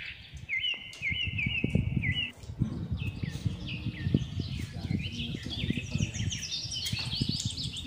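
Small birds chirping: a quick run of repeated rising notes in the first couple of seconds, then scattered chirps climbing higher toward the end. Low knocks and rustling from people eating at a table run underneath.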